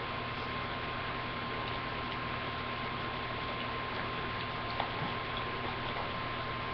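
Steady hiss with a thin, constant high-pitched whine from a webcam microphone's electrical noise, and a faint click near the end.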